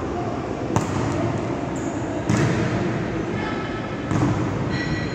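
A volleyball being hit three times during a rally, each contact a sudden slap about a second and a half apart, echoing in a large gymnasium.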